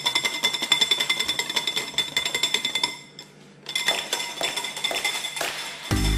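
Dalgona coffee mixture being beaten by hand: rapid, continuous clinking of a utensil against the container, with a short break about three seconds in. Music starts right at the end.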